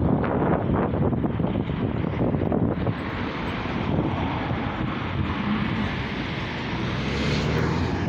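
Road traffic with a double-decker bus's diesel engine. The engine and tyre hiss build through the second half as the bus drives up and passes close by, and are loudest just before the end.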